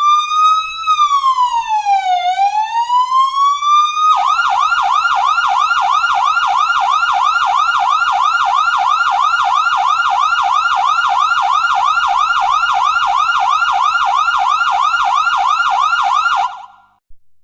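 Electronic emergency-vehicle siren: a slow wail rising and falling, switching about four seconds in to a fast yelp of about three sweeps a second, which cuts off near the end.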